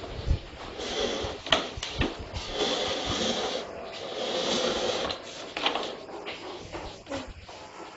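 A plastic toy ride-on car being handled and knocked about on a hard floor: sharp clicks and knocks, with two stretches of steady rasping noise, each about a second long, near the middle.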